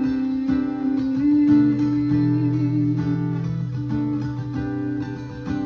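Guitar strumming chords in a steady rhythm: an instrumental passage of a song with no singing.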